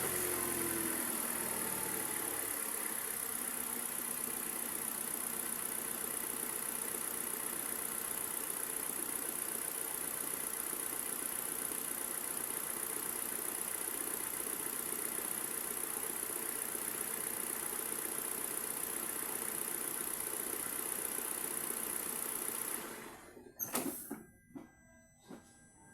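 Kia Rio engine idling steadily just after starting, with its freshly cleaned MAP sensor. The sound cuts off suddenly about 23 seconds in, followed by a few sharp clicks.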